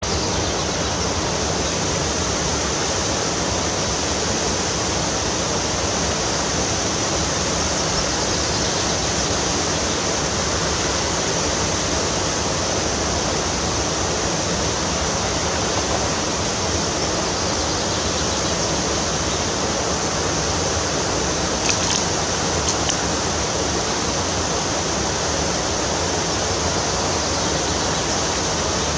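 Steady rush of fast-flowing river water, with two faint clicks about three quarters of the way through.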